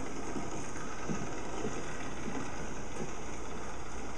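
Steady hiss over a low electrical hum, the noise of a poor-quality recording, with faint, indistinct low sounds under it.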